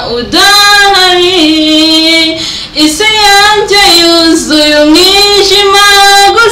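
A woman singing solo into a handheld microphone, in long held notes that slide from one pitch to the next, with short pauses for breath between phrases.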